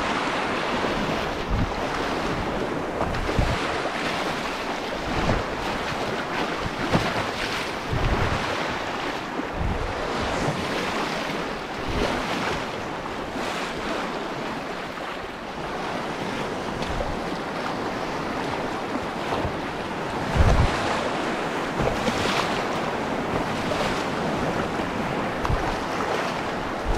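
Fast whitewater river rushing and churning around a canoe running standing waves, with wind buffeting the microphone in short low thumps every few seconds, the strongest about two-thirds of the way through.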